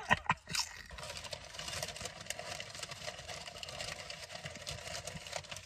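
Potato chip crunched between the teeth in a few sharp cracks near the start, then chewed with the mouth closed in soft crunching over a faint steady hum.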